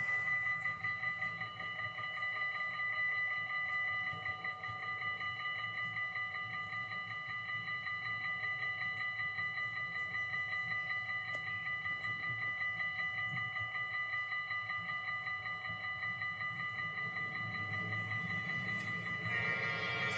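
Railway level-crossing warning bell ringing rapidly and without a break over a low rumble. Near the end a fuller, louder chord of tones joins: the train's horn sounding.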